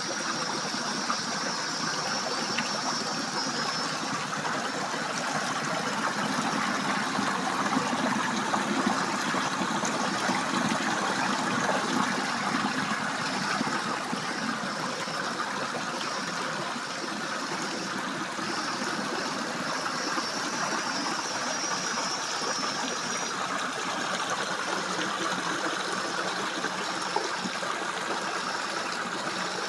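A stream running steadily after heavy rain, a continuous rushing of water. Over it a cicada buzzes high, for the first few seconds and again about two-thirds of the way through.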